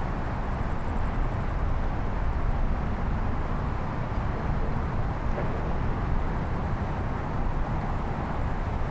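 Steady outdoor background rumble, like distant traffic, with no distinct events.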